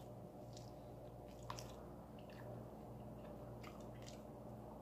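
Faint chewing and small wet mouth clicks of a man eating boiled chicken from a bowl of samgyetang, ginseng chicken soup. A low steady hum runs underneath.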